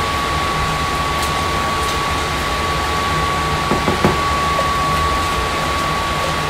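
Steady hiss and low hum, fan-like, with a thin steady high whine running through it. About four seconds in come a few soft scrapes and knocks as thick canned chili is scraped out of the can with a silicone spatula.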